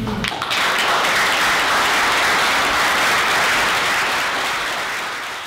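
Audience applauding, starting just after the reading ends and tapering off near the end.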